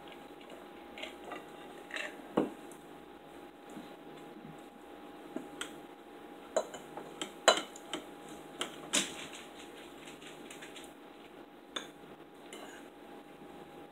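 Knife and fork scraping and clinking on ceramic dinner plates as meat is cut, with sharp clinks scattered through, the loudest between about seven and nine seconds in. A faint steady hum runs underneath.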